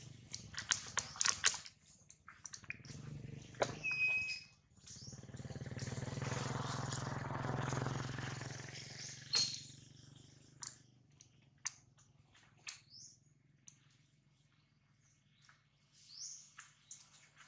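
Outdoor ambience: scattered short, high chirps and a few sharp clicks, with a broad rushing noise that swells up and fades away over about four seconds midway.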